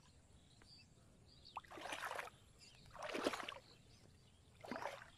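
Water splashing three times, about a second and a half apart: short sloshing swishes in shallow water as the net is handled.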